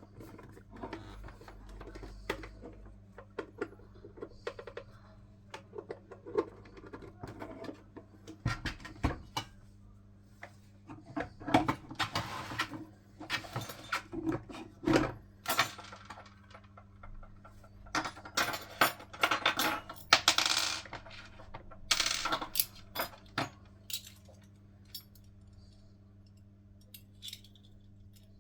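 Small metal soldering iron tips and hot air gun nozzles clinking and clattering as they are handled, in irregular clusters of sharp clicks over a steady low hum.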